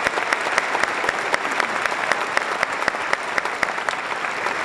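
Large audience applauding, many hands clapping in a dense, steady patter.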